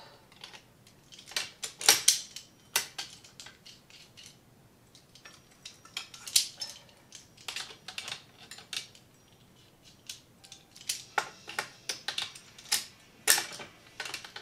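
Irregular metallic clicks and taps of a wrench working on the handlebar stem bolt of a kids' steel bike as it is tightened.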